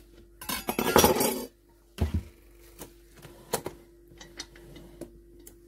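Kitchen cookware and utensil handling: a scraping rustle lasting about a second, then a sharp knock about two seconds in and a run of light clinks and taps.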